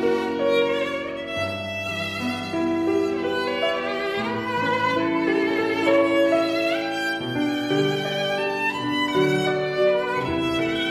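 Background music led by a violin playing slow, long-held notes over sustained lower notes.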